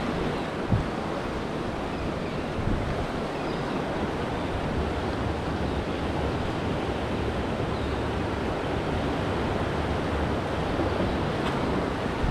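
Rough inlet water rushing and breaking in a strong current, with wind buffeting the microphone; a steady rush of noise.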